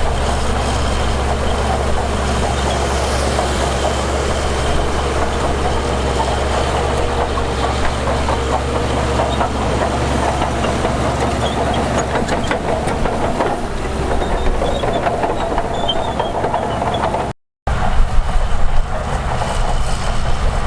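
Diesel engine of heavy earthmoving machinery running steadily with a deep drone. About 17 seconds in it cuts out abruptly for a moment, then comes back a little louder.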